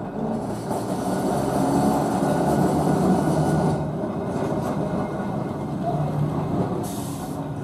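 Vintage 1931 double-deck electric tram rolling along the rails toward the listener, its wheels and running gear giving a steady rumble that grows louder and peaks a couple of seconds in. A short hiss comes near the end.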